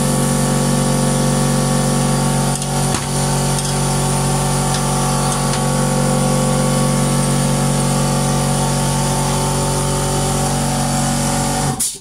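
Air-driven replica of Tesla's mechanical oscillator, a steel piston on a magnetic spring, running on low-pressure compressed air with a loud, steady pitched buzz. It stops suddenly near the end.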